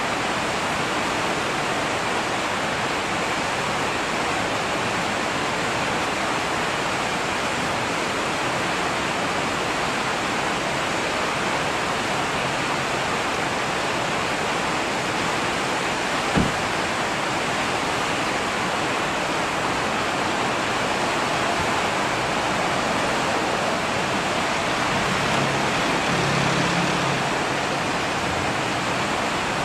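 Steady rushing of the fast-flowing Wind River, the river running high and raging. A single brief click about halfway through.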